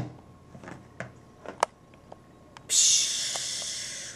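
Plastic cake carrier being opened: a knock at the start and a few light clicks as the lid is handled. About three seconds in comes a steady hiss that fades over about a second and a half.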